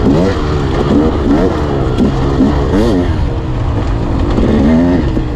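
Off-road motorcycle engine on an enduro trail, revving up and dropping back over and over as the throttle is blipped, about once or twice a second, over a steady low rumble.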